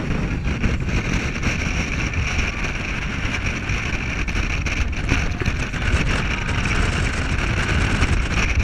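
Passenger speedboat running at speed over choppy sea: steady engine noise mixed with rushing water, with wind buffeting the microphone.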